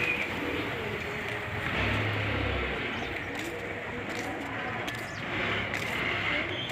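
Birds calling over a steady outdoor background noise, with a brief low rumble about two seconds in.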